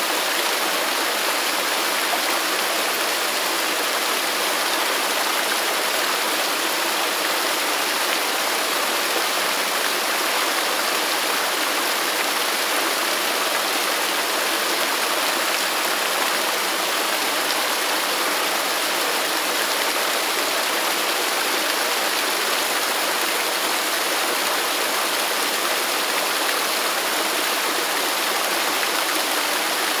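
Forest waterfall: a steady, even rush of falling water with no separate splashes or changes.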